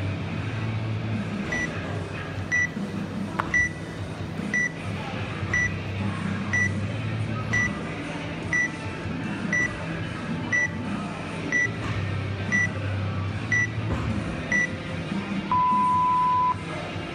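Workout interval timer counting down the last seconds of a rest period: a short high beep once a second, fourteen times, then one long, lower beep at zero that signals the start of the next work interval.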